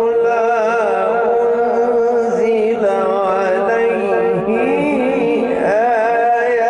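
A male reciter chanting the Quran in the ornamented, melismatic Egyptian mujawwad style, each held syllable winding up and down in pitch, over a steady hum.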